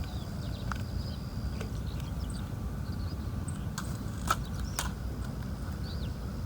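Steady low outdoor rumble, like wind on the microphone, with three sharp clicks about four seconds in, the middle one the loudest.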